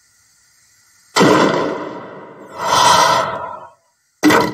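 A cartoon voice giving two long, breathy, wordless sighs, then a short sharp burst of sound near the end.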